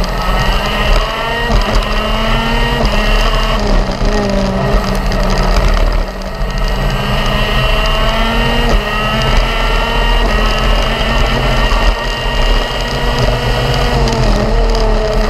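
A racing go-kart's engine under power, recorded on board with wind rush over the microphone. Its high, buzzing note climbs steadily, drops back briefly about four seconds in and again about six seconds in, then rises again over a long run.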